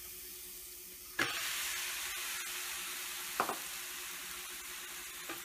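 Grated beetroot sizzling as it hits hot melted butter in a frying pan. The sizzle steps up about a second in as more beetroot goes in, with three short knocks against the pan.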